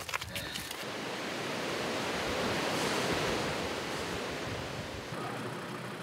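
Sea waves washing against a rocky shore, the surge swelling to a peak about halfway through and then fading.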